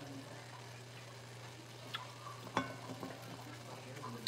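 Green curry cooking in a frying pan with a faint sizzle, a spoon stirring it, and two light clicks of a utensil against the pan about two to two and a half seconds in, over a steady low hum.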